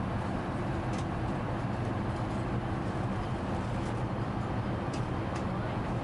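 Steady low drone of an Airbus A380 cabin in cruise: engine and airflow noise heard from inside the first-class suite, with a few faint light clicks.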